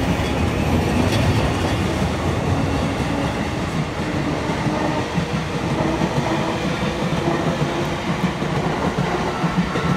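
Green-and-orange-striped electric commuter trains on the Tokaido Line tracks: a steady rumble of wheels on rail with some clatter. A thin steady whine joins near the end.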